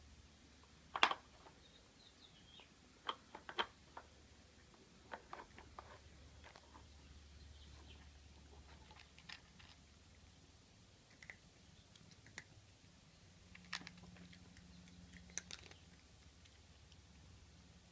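Irregular clicks and clacks of a plastic Nina Ottosson Dog Brick treat puzzle as a cat paws at its sliding pieces and bone-shaped covers, with crunching of dry cat treats. The loudest clack comes about a second in.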